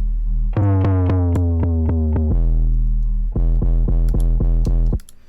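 An 808 bass sample looping through a distortion plugin: a few long, gritty sub-bass notes, the first sliding down in pitch, with short high ticks over them. It cuts off about five seconds in.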